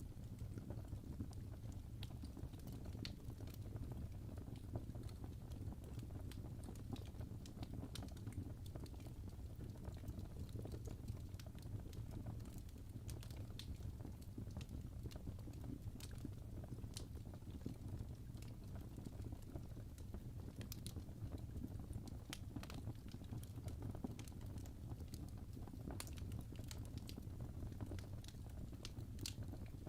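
Wood logs burning in a fireplace, crackling with irregular small pops and snaps over a low steady rumble of the flames.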